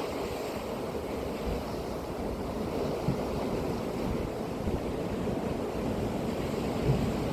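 Sea surf washing steadily onto the shore, a continuous rushing wash of waves, with wind buffeting the microphone as a low rumble.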